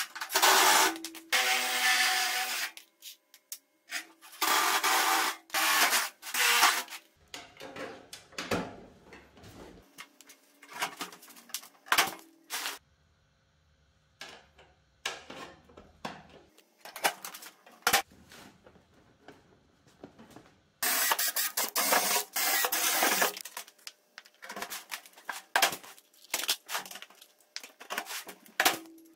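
Cordless drill running in short bursts of a few seconds, drilling holes through thin aluminium sheet, with sharp clicks and clinks of small metal parts and tools being handled between the bursts.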